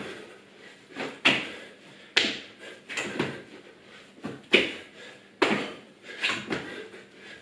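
Burpees on a tiled floor: repeated thumps and scuffs of hands and trainers landing and pushing off, about one a second.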